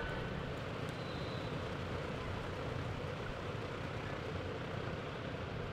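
Steady low rumbling background noise of a large indoor arena, even throughout, with no distinct hoofbeats standing out.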